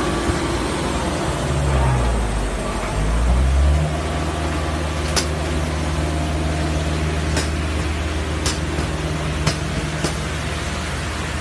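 Low machinery rumble in an aircraft cargo hold, rising and falling for the first few seconds, then settling into a steady low engine-like hum. A handful of short sharp knocks sound over the second half.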